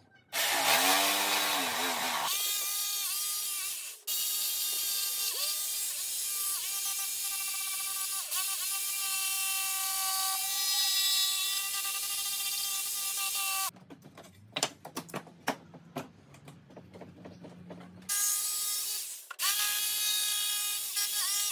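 AEG jigsaw cutting a curve in a clamped wooden board. The motor's whine dips in pitch now and then as the blade bites. About two-thirds of the way through the saw stops for a few seconds, leaving only small clicks and knocks, then starts again with a brief pause near the end.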